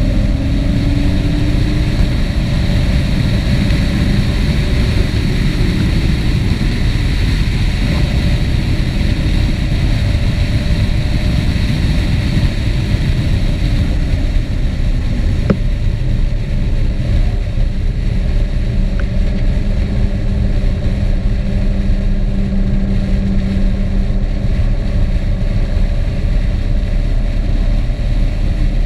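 Steady, loud rush of wind and road noise on a camera riding with a moving vehicle, with an engine note rising briefly near the start and holding for a few seconds about two-thirds of the way through.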